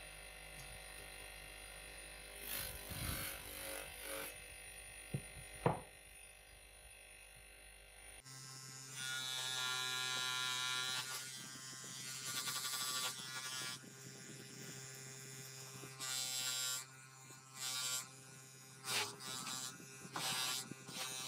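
DeWalt bench grinder motor running with a steady hum, its wheel spinning. Metal parts are pressed against the wheel several times, each one a short burst of grinding.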